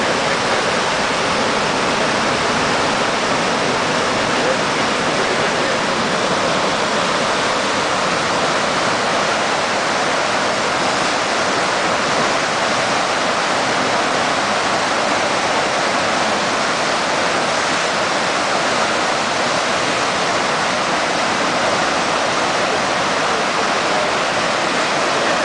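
Whitewater of a river standing wave rushing steadily, fast water churning over a raised underwater structure that builds the surfable wave.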